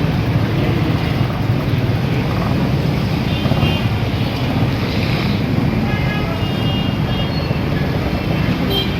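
Steady rumble of busy street traffic, with a few short high tones over it about three seconds in and again about six seconds in.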